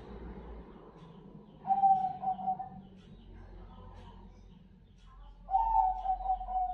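A Bangkok-bred zebra dove (perkutut) cooing in its cage: two ringing coo phrases, one about a second and a half in and one near the end, with soft broken notes between them.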